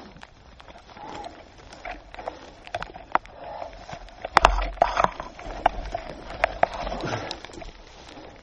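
Irregular sharp clicks and knocks with rustling right at a helmet-mounted camera, loudest with a thump about halfway through. No engine is running.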